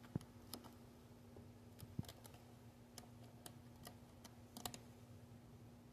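Faint scattered clicks and light taps of a playing cat's claws and paws on a carpeted cat tree and its sisal scratching post, with two soft thumps, one at the start and one about two seconds in, over a faint steady low hum.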